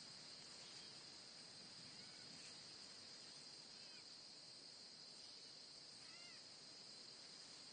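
Faint outdoor ambience: a steady high-pitched insect drone like a cricket chorus, with a few short chirps about two, four and six seconds in.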